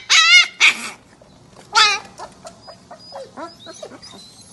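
Husky puppy yowling: two loud calls with a wavering pitch in the first second and another near two seconds in, then fainter short yips and whines.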